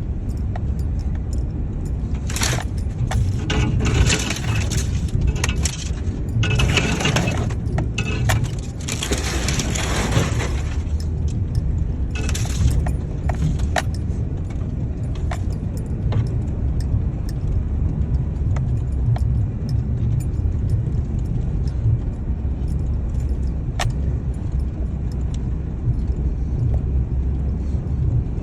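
Steady low road rumble inside a moving car, with bursts of metallic jingling during the first dozen seconds or so and scattered light clicks.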